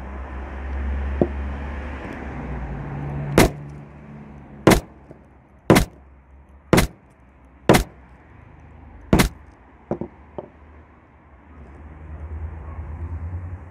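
A hammer striking a smashed smartphone lying on wooden boards: six sharp blows about a second apart, then two lighter knocks. A low rumble runs underneath, louder at the start and near the end.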